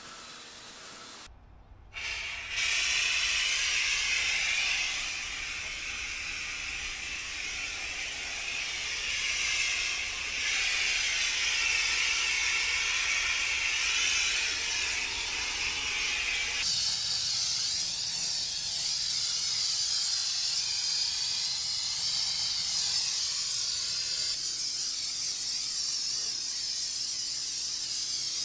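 Pressure washer's high-pressure water spray hissing steadily on paving. It cuts out briefly and starts again about two seconds in, and turns higher and hissier from about seventeen seconds on.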